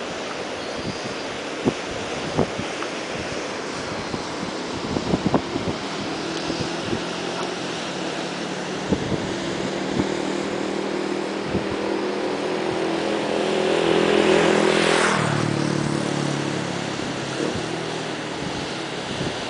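A motor vehicle approaching and driving past, loudest about fourteen seconds in, its engine note dropping in pitch as it goes by and then fading. Underneath runs a steady rushing noise, with scattered sharp clicks.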